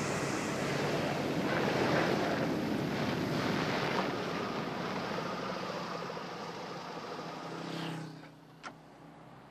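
Ambulance van's engine running and tyres rolling on pavement as it drives past and pulls up ahead; the sound is loudest about two seconds in, tapers off and drops away about eight seconds in, followed by a short click.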